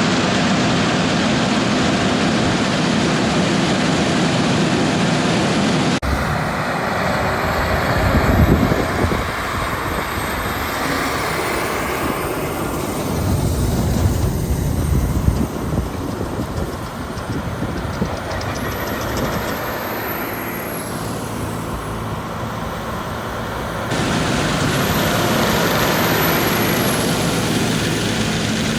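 Heavy diesel harvest machinery running steadily in a wheat field, a combine and a tractor pulling a grain cart. The sound changes abruptly about six seconds in and again near the end, with a deeper low rumble swelling twice in the middle.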